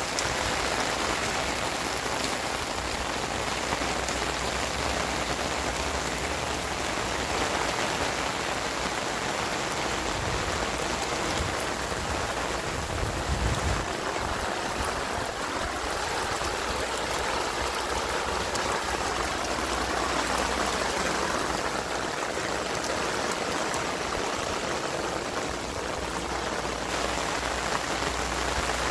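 Rain falling steadily, splashing on soaked, puddled ground.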